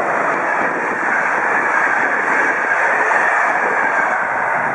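Electric-locomotive-hauled passenger train passing: a loud, steady rolling noise of the coaches' wheels on the rails, easing slightly near the end.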